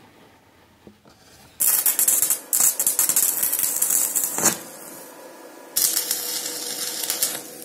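Stick-welding arc crackling as a steel chair-frame tube is welded: one weld starts about a second and a half in and runs about three seconds, and a second, shorter one starts near six seconds and lasts about a second and a half. Each weld starts and stops abruptly.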